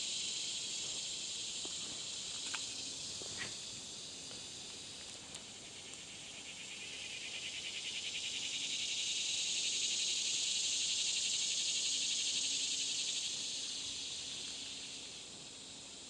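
Summer insects droning, a cicada buzz swelling up over several seconds with a fast pulsing and then fading away near the end. A couple of faint clicks sound in the first few seconds.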